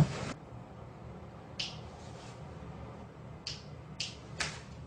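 A loud thump at the very start as a person lunges off a bunk bed onto the one below. It is followed by four short, soft scuffs as they settle onto the bedding.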